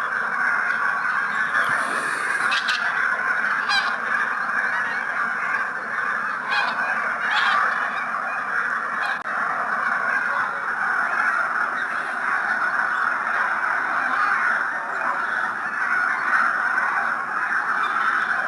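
Many geese honking and calling together in a continuous, overlapping chorus, with a few sharper individual calls standing out now and then.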